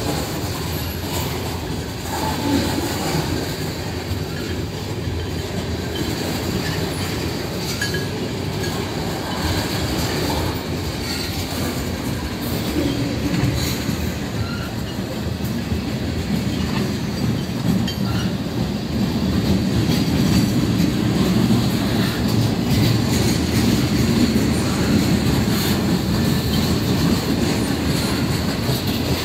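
Freight train of tank cars, lumber flatcars and boxcars rolling past: a steady rumble of steel wheels on rail with occasional clicks and a faint high whine, growing louder about halfway through.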